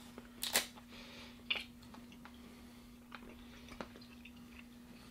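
Faint chewing of a chewy, taffy-like sour candy, with a few short crinkles and clicks from its paper wrapper, the loudest about half a second in, over a steady low hum.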